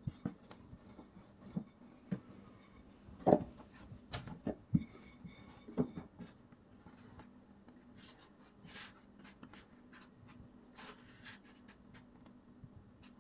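Wooden rolling pin working dough on a floured board, with a run of knocks over the first six seconds. After that, the quieter rubbing of hands rolling the dough sheet into a rope. A faint steady hum runs underneath.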